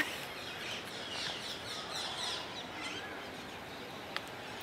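Many birds chirping in quick, high, repeated chirps over a steady outdoor background hiss, with a short tick about four seconds in.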